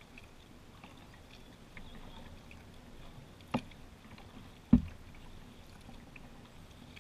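Kayak being paddled on a river: quiet water sounds and small drips, with two sharp knocks on the boat, one about three and a half seconds in and a louder, deeper one about a second later.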